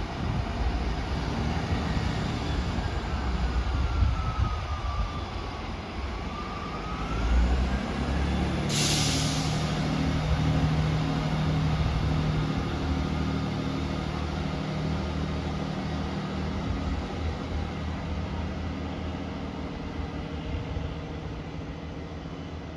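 Class 158 diesel multiple unit pulling away under power, its diesel engines running and fading as the train draws off. A whine dips and rises again in pitch over the first several seconds, and a short sharp hiss comes about nine seconds in.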